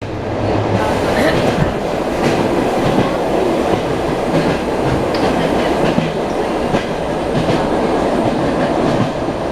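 ED9M electric multiple unit running along the line, heard from inside the carriage: a steady rumble with the clickety-clack of the wheels over rail joints.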